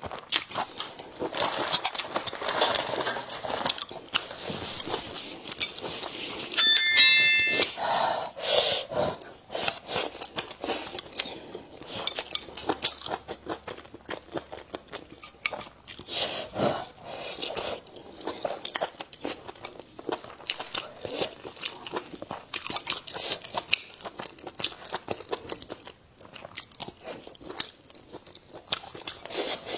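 Close-up chewing and crunching of a pickled-chili stir-fry of pork intestines and offal, with wet, irregular bites and crackles throughout. About seven seconds in comes a brief bright ringing clink, the loudest sound.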